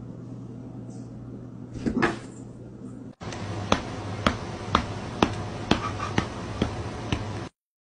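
A steady low hum with a brief clatter of knocks about two seconds in; then, over a hum, a run of about eight sharp taps, evenly spaced at about two a second, which stops abruptly.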